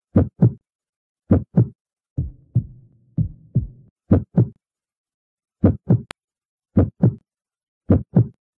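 Heartbeat sound effect: paired low 'lub-dub' thumps repeating at uneven intervals with silences between. A softer stretch of beats over a low hum comes between about two and three and a half seconds in, and a single sharp click sounds just after six seconds.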